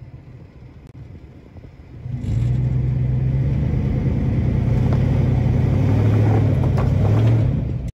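2001 Ford F-150's 5.4L Triton V8 running at a low rumble, then revving up hard about two seconds in and holding under load. The rear tire spins in the sand and drags the traction boards under it, with the truck in two-wheel drive and the tires not aired down. The engine sound stops abruptly near the end.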